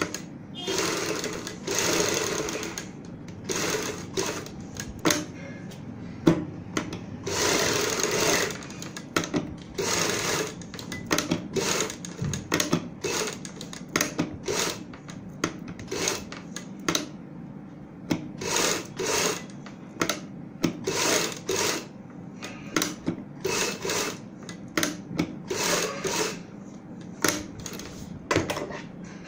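Sewing machine stitching through fabric and buckram in stop-and-go runs: a few longer runs of a second or two early on, then many short bursts with brief pauses between them.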